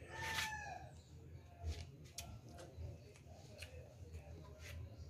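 A rooster crowing, its call trailing off with a falling note within the first second. Then a few scattered soft clicks and smacks of someone chewing food.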